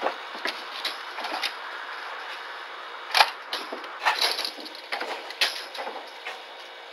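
Irregular light clicks, taps and rattles in a wire animal cage, a dozen or so spread over the few seconds, the sharpest about three seconds in, over a steady hiss.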